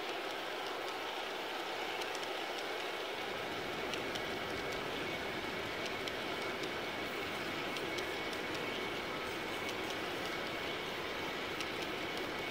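Large-scale garden-railway model tank cars rolling past on the track: a steady rumble of wheels with occasional faint clicks, and a thin steady high tone from about two seconds in.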